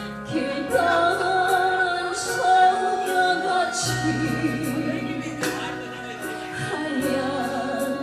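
A woman singing a Korean popular song in long held notes over a band accompaniment.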